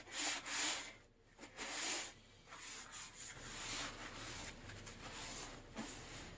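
Paper towel rubbed over the corroded sheet-metal underside of a computer case, wiping it down after rust-removal treatment. Two brisk scrubbing strokes in the first two seconds, then quieter, steadier rubbing.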